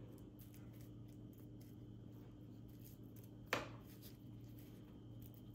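Quiet kitchen room tone with a steady low hum, a few faint ticks, and one sharp knock a little past halfway through.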